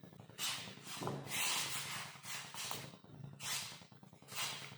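A spoon stirring and scraping in a pan of spiced water, heard as about seven short rubbing strokes of varying length.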